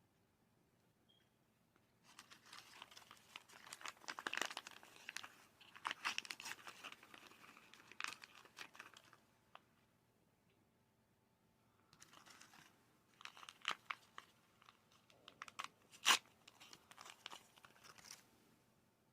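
Plastic blind-bag packaging being crinkled and torn open by hand for a Mini Brands unboxing, in two long stretches of crackling with a pause between them, and one sharp snap near the end.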